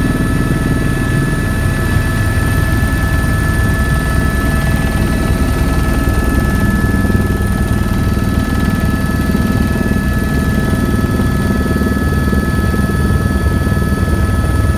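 Helicopter in flight heard from inside its cabin: a steady, loud low rumble from the engine and rotor, with a constant high whine on top.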